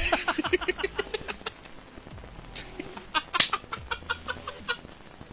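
Two men laughing hard in quick, repeated bursts; the laughter eases off, then breaks out again about three seconds in before dying away.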